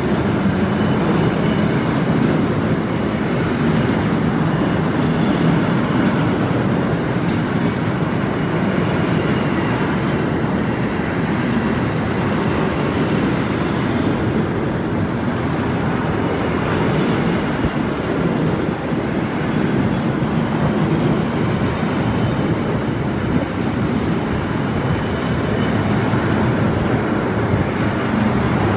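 Freight train of double-deck car-carrier wagons rolling past close by: a steady rumble of steel wheels on the rails, even and unbroken throughout.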